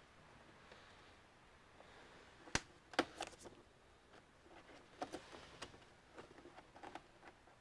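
Scattered light plastic clicks and taps from prying at the snap-in clips of an all-in-one computer's casing: two sharper clicks about two and a half and three seconds in, then a run of smaller ticks.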